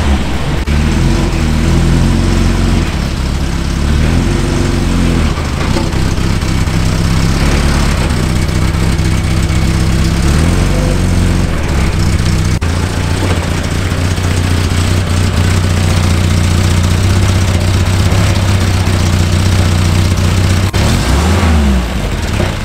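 1975 Datsun 620 pickup's 1.5-litre four-cylinder OHV engine running as the truck is driven slowly out at low revs. The revs swell a little early on and then hold steady, with a brief rev rise and fall near the end.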